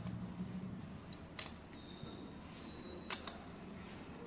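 A few faint, sharp clicks and taps of hand tools on an engine's timing-chain assembly, over low workshop background noise.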